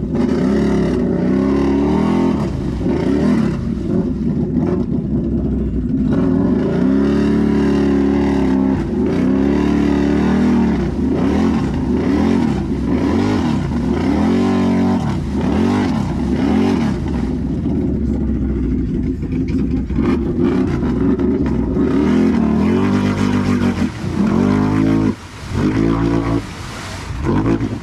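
Can-Am Renegade XMR 1000's V-twin engine, fitted with an aftermarket megaphone exhaust, revving up and down over and over under hard throttle, with a few brief let-offs near the end.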